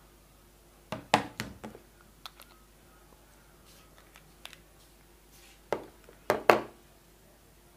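Sharp plastic clicks and knocks from handling wireless earbuds and their charging case, in two quick clusters: one about a second in and a louder one near six seconds, with a few faint ticks between.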